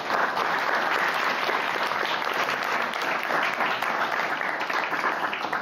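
Audience applauding: a crowd of people clapping steadily.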